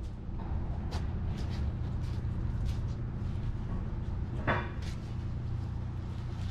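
A few light knocks and clicks of things being handled, with one louder scraping knock about four and a half seconds in, over a steady low rumble.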